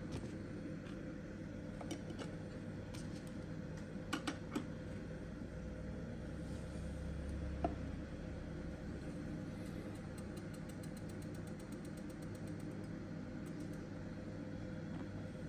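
Steady low electrical hum, with a few scattered clicks and light taps, three in quick succession about four seconds in.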